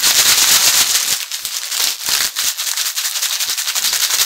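Crisps being shaken inside a plastic snack bag with their seasoning powder: a loud, dense, continuous rattle and crinkle as the chips tumble against the bag.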